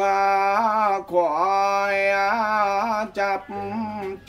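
A man chanting a Mường mo ritual chant, unaccompanied, in long held notes that waver and bend in pitch. The chant breaks off briefly about a second in and again just past three seconds.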